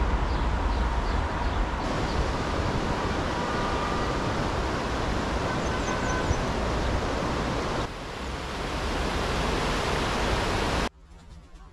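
Steady rushing noise of a shallow river running over a low weir, with a few faint bird chirps at the start; it cuts off suddenly near the end.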